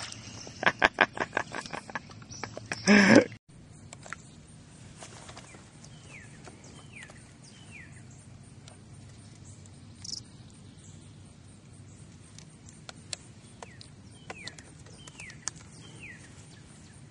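Quiet pond-side outdoor background with a bird giving short falling chirps in small groups of two or three, and a few faint clicks. Before that, a rapid run of clicks and a loud burst cut off suddenly about three seconds in.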